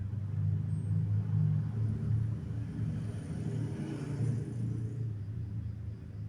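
Motorcycle engine running with a steady low rumble, its sound growing brighter for a second or two near the middle.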